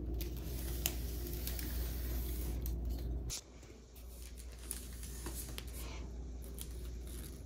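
Faint handling noise with a few light clicks over a low background hum, from the camera being moved around the basket. The hum drops abruptly about three seconds in.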